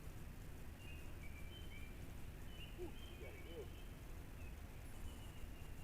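Faint, short bird chirps over a steady low rumble of wind or water noise, with a couple of brief low whines about three seconds in.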